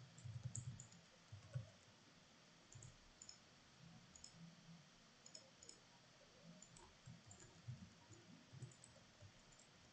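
Faint, scattered computer mouse clicks over near silence.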